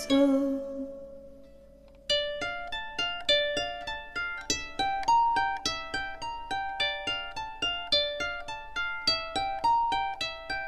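Background music: a held note fades out, then about two seconds in a plucked string instrument starts a quick, bright melody of evenly paced notes.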